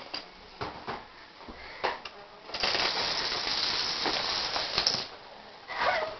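Dominoes toppling: a few separate clicks, then a dense, rapid clatter lasting about two and a half seconds as a long run of them falls in quick succession.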